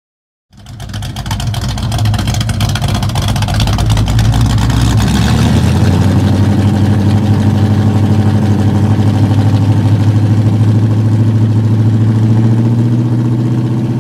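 A loud engine running, cutting in suddenly about half a second in and holding steady, with a fast pulsing beat.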